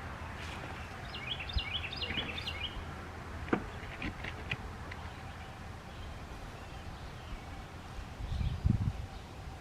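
A bird chirping: a quick run of high chirps about a second in, over steady outdoor background noise, with a few light knocks afterwards.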